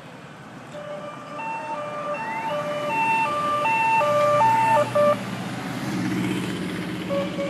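Two-tone siren on an approaching motorcycle. It switches between a low and a high note about every half second and stops about five seconds in. The motorcycle's engine then grows louder as it draws near.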